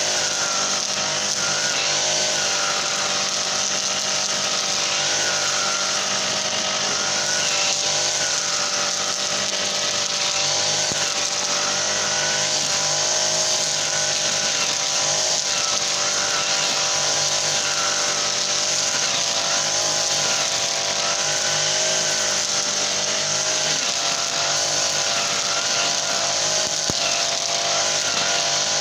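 Honda GX35 four-stroke engine of a brush cutter running steadily at high speed, its pitch dipping and recovering slightly every few seconds.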